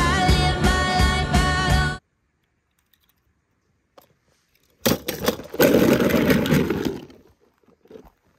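Music that cuts off abruptly about two seconds in. After a short silence comes a loud rush of noise lasting about two seconds, which then fades.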